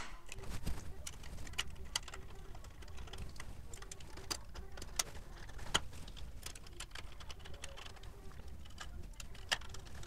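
Irregular light clicks and taps from handling the IMAX B6AC charger's metal case and small screws on a tabletop as it is put back together. The sharpest clicks come about six seconds in and near the end.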